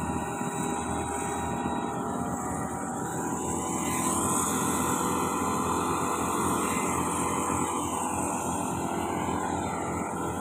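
Backpack motorized rice-seed broadcaster (blower-type seeder) with its small engine running steadily, blowing rice seed out through the discharge tube.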